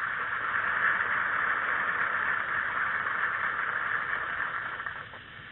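Outboard motor running steadily, a buzzing noise that drops away near the end, heard on a muffled old film soundtrack.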